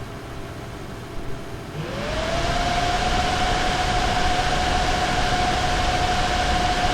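Nvidia GeForce RTX 2070 Super graphics card fans spinning up about two seconds in: a rising whine and rush of air that then holds steady at high speed. This is the card's fault of fans revving up and down at random while on automatic fan control.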